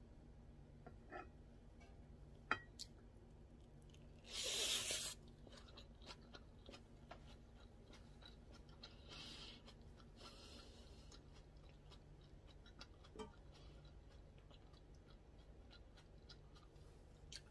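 Quiet clicks and scrapes of chopsticks and a spatula stirring bibimbap in a metal mixing bowl. A louder scraping rustle of under a second comes about four and a half seconds in, and two softer ones follow later.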